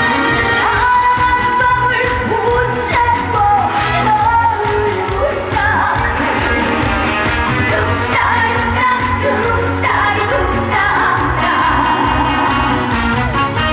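Live trot song: a woman singing with vibrato over a band backing with a steady beat.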